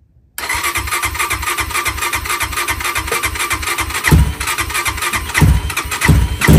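Electric starter cranking the Xpro Templar X 250cc four-stroke single-cylinder dirt bike engine in rapid, even pulses on its first start, with the engine beginning to fire in heavier, louder thumps about four seconds in.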